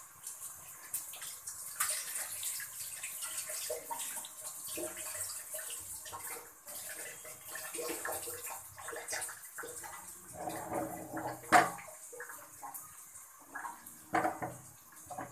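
Batter fritters deep-frying in hot oil in a pan: a steady high sizzle with small crackling pops throughout, and one sharp knock about two-thirds of the way through.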